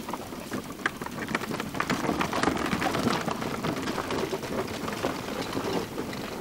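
Steady crunching and crackling of a pushed camera cart's wheels, a bicycle's tyres and footsteps rolling over a dirt forest path, growing louder about two seconds in.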